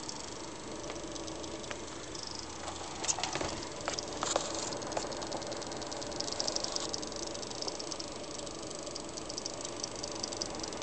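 Seasonic-built XFX 450 W power supply giving off a high, rapid, irregular ticking rattle over a steady hiss, with a few louder clicks about three to four seconds in and a denser run of fast ticks from about six seconds on. The owner takes the ticking for coil whine rather than the fan.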